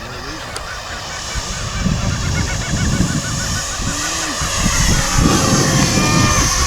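Electric ducted-fan whine of an RC Cessna A-37 DragonFly model jet in flight, its pitch sweeping up and down as the model passes. Wind buffets the microphone with a gusty rumble from about two seconds in.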